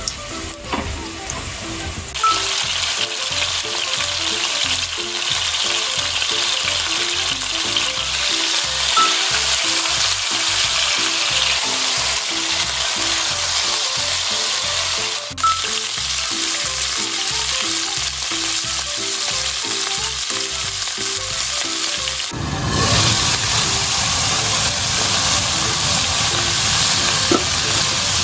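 Oil sizzling in a frying pan: sliced garlic frying in olive oil, then two thick blocks of beef searing in the hot oil. The sizzle is steady throughout, and fuller and deeper for the last few seconds.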